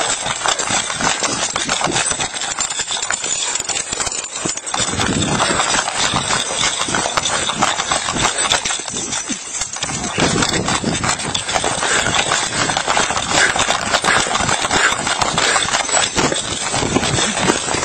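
Body-worn camera jostling as its wearer runs: rapid footfalls with clothing and gear rubbing against the microphone, making continuous rough noise broken by many short knocks.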